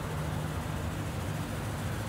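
1967 Pontiac Safari's V8 engine idling steadily with an even low rumble.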